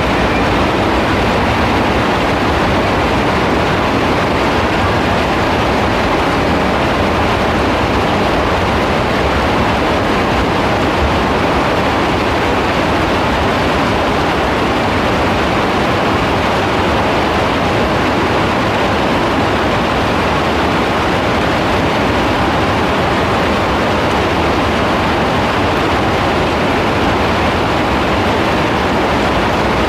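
Heavy rain falling steadily, a dense, unbroken hiss with no breaks or single drops standing out.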